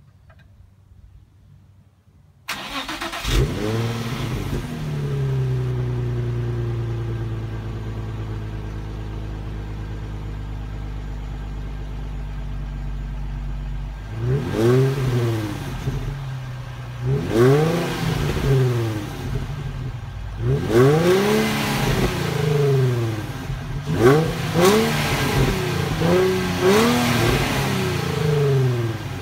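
2006 Nissan 350Z's 3.5-litre VQ35DE V6 heard through its stock dual exhaust. It starts about two and a half seconds in, flares and settles to a steady idle that slowly drops. From about halfway it is revved again and again in short throttle blips, each rising and falling, coming closer together near the end.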